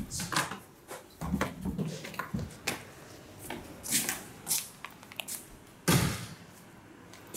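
A door knob is turned and the door opened, followed by scattered clicks, knocks and handling noises, with a heavier thud about six seconds in.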